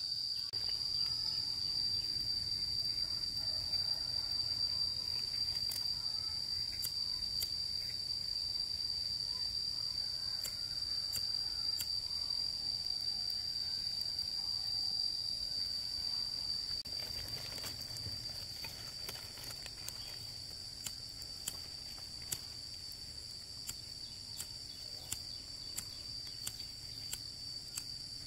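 Insects droning with one steady, high-pitched tone, with scattered sharp clicks that come more often in the second half.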